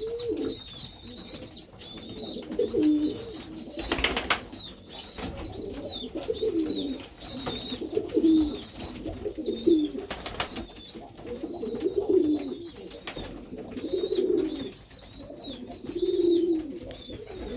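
Domestic pigeons cooing again and again in low, rolling phrases, with a continuous high chirping of small birds behind them. Two sharp knocks come about four and ten seconds in.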